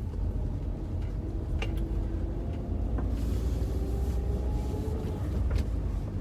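A car driving along, a steady low rumble of engine and road noise, with a few faint clicks.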